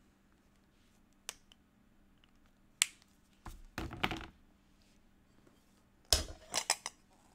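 Sharp clicks and knocks of things handled on a desk: single clicks, then a short cluster of heavier knocks in the middle and another quick cluster near the end.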